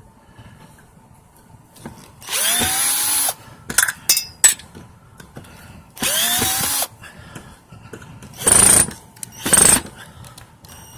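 Power screwdriver run in four short bursts as it backs screws out of scrap metal. The first two bursts last about a second each, their pitch rising as the motor spins up, and the last two are shorter. A few clicks of the bit and screws come between them.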